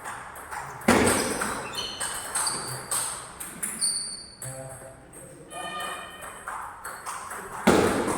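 Table tennis ball being hit back and forth in a rally: a run of sharp pings of the celluloid/plastic ball off bat and table, with two louder strikes about a second in and near the end.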